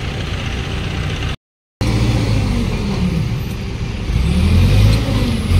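Road vehicle engine noise, cut off briefly by an edit about a second and a half in; after the cut it is louder, with the engine pitch sliding up and down, and it grows louder towards the end.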